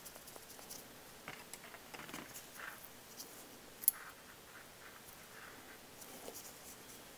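Faint handling of a metal damper bracket and small parts on a workbench: light clicks and scrapes, with one sharp click about four seconds in.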